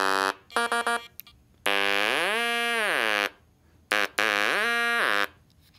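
TruTone EMOTE electrolarynx buzzing: a short buzz, then three quick beeps that mark the switch to mode 3. Then two longer buzzing tones glide up in pitch and back down as the pressure-sensitive power button is pressed harder and eased off, showing mode 3's range of about an octave.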